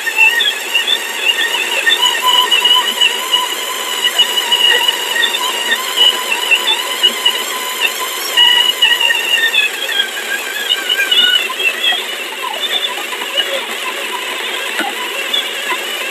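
Motorized 1zpresso hand coffee grinder grinding beans at a coarse pour-over setting: a steady high-pitched motor whine over the crunch and crackle of beans being crushed. The whine fades a little past the middle while the crackling goes on.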